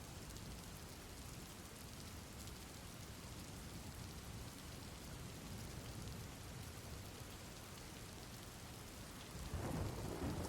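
Steady, faint rain with a low rumble of thunder that swells near the end.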